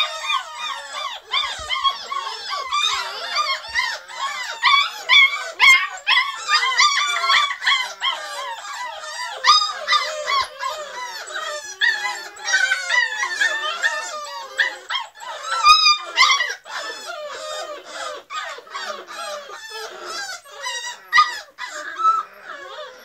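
A litter of beagle puppies whining and yelping together: many high-pitched cries overlapping without a break.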